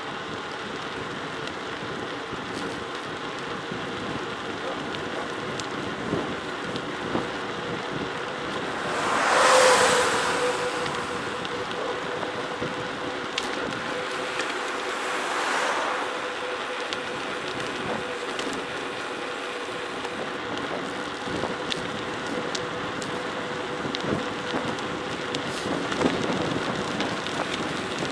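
Wind rushing over the microphone and tyres rolling on a forest road on a downhill ride, with scattered small ticks throughout. There are two louder swells, the bigger about a third of the way in, and a faint steady whine sets in with it.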